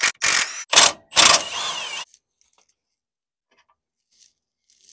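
Milwaukee cordless impact wrench hammering out the lower shock-absorber bolt on a truck's front suspension: a few short bursts, then one longer burst of about a second, stopping about two seconds in. A couple of faint clicks near the end.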